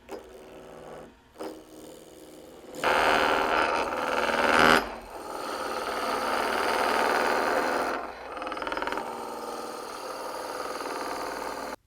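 Wood lathe spinning a spindle while a turning tool cuts into the wood. The cut comes in short touches at first, is loudest for about two seconds, then settles into a steady continuous cut that stops abruptly near the end.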